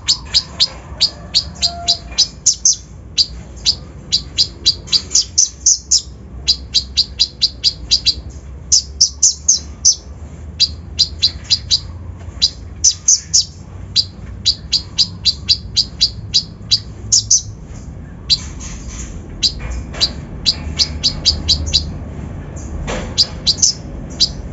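Konin (kolibri ninja, the little spiderhunter) singing a fast stream of short, sharp high chirps, several a second, in runs broken by brief pauses.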